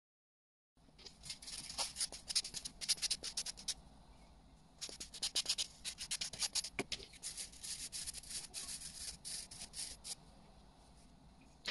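Hand-held abrasive nail tool buffing bare natural nails: quick scratchy rubbing strokes in two runs, a short pause between them about four seconds in, the strokes stopping about ten seconds in.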